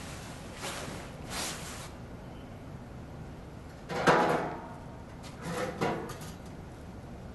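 A few knocks and scrapes of gear being handled and moved, the loudest about four seconds in and two more near six seconds, over a steady background hiss.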